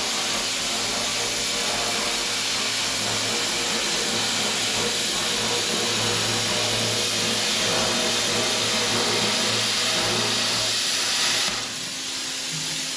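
Plasma cutter cutting sheet steel: a loud, steady hiss of arc and air over a low hum. It stops about eleven seconds in, leaving a softer steady hiss of air.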